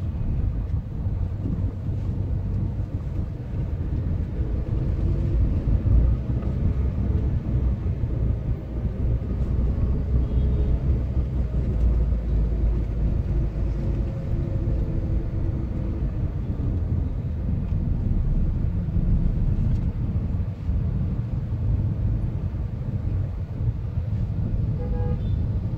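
Low, steady engine and road rumble heard from inside a car's cabin while driving slowly through city traffic, a little heavier for several seconds mid-way.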